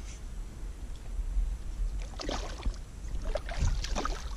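A hooked traíra splashing and thrashing at the water's surface, in two bouts about two seconds in and again near the end, over a steady low rumble.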